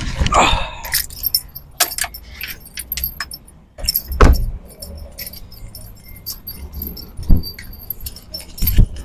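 Irregular clinks and knocks of small hard objects jostling, over a low rumble. The loudest knocks come about four seconds in and again about seven seconds in.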